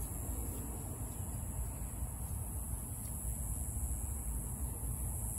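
Steady outdoor background: a low rumble with a constant high-pitched hiss, and no distinct event.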